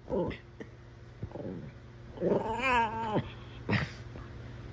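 Small dogs play-fighting, vocalizing: a few short falling yips, then one long wavering whine-howl lasting about a second in the middle, and a last short yip.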